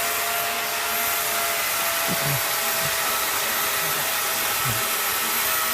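Power saw running steadily at full speed, trimming the base of a Christmas tree trunk, with faint voices underneath.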